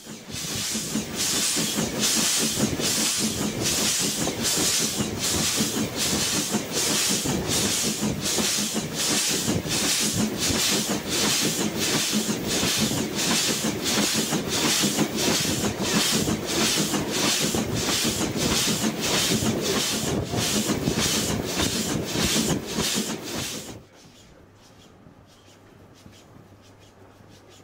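Steam locomotive working, a steady hiss with evenly spaced exhaust beats; it cuts off suddenly near the end.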